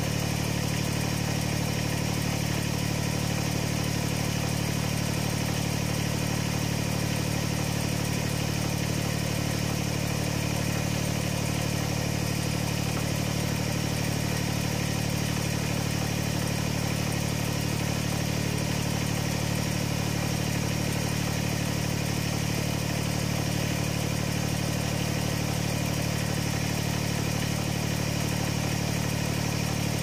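Kubota BX25D's three-cylinder diesel engine running steadily, with no change in speed.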